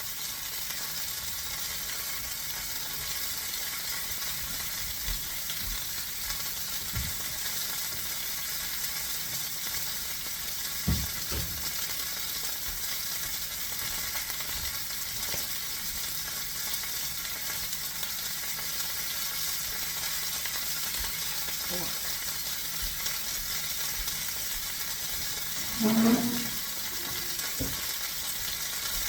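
Butterflied whole chicken sizzling in a pan on a stovetop over medium-high heat, a steady frying hiss. A few short knocks come through it, the loudest about 26 seconds in.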